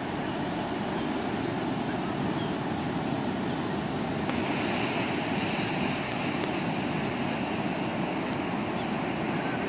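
Surf on a sand beach: small waves breaking and washing up the shore in a steady, unbroken rush.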